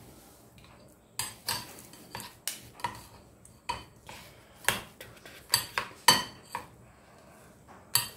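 Metal spoon and tongs clinking against the batter bowl while dipping fish in batter: about a dozen sharp, ringing clinks at an irregular pace, starting about a second in.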